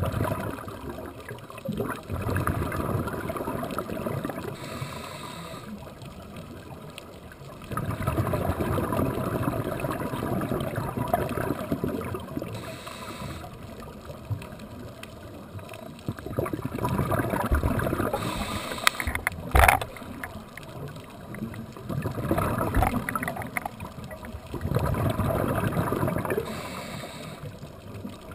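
Scuba diver's regulator breathing heard through an underwater camera: long gurgling rushes of exhaled bubbles every several seconds, each followed by a brief hiss of inhaling through the regulator. A single sharp click comes about twenty seconds in.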